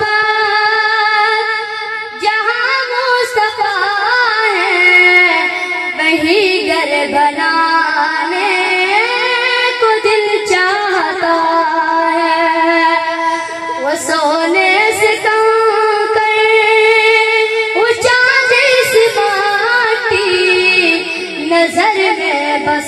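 A boy's high voice singing a naat, a devotional Urdu poem in praise of the Prophet, unaccompanied into a handheld microphone, drawing out long held notes that glide and bend between the sung words.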